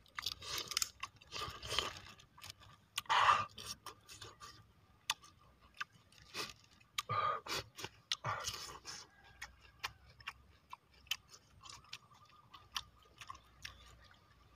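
Close-up wet chewing and crunching of raw prawns, with short clicks and crackles as the shells are peeled by hand; the chewing is busiest in the first nine seconds and thins to scattered clicks after.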